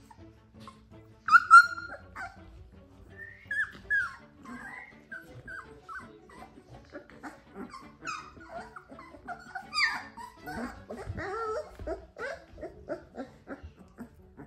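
A litter of young puppies whining and yipping: many short, high, falling whimpers and squeals in irregular succession, with two sharp loud yelps about a second and a half in and another loud flurry near ten seconds.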